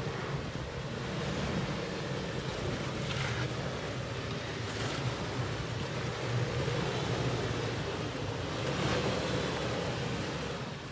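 Toyota 4Runner's V6 running at low revs as it crawls over rocks and dirt, a broad rumble that grows louder as the truck comes close, mixed with wind buffeting the microphone.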